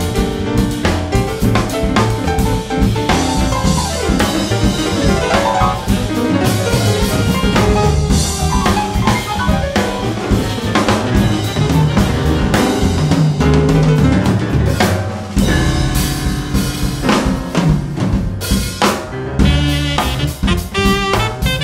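Jazz quartet recording with the drum kit to the fore: busy snare, rimshot and bass-drum playing over a bass line.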